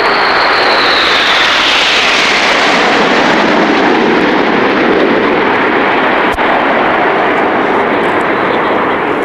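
Formation of BAE Hawk jets passing low overhead: loud, steady jet noise with a high whine that falls in pitch over the first two to three seconds as they go by.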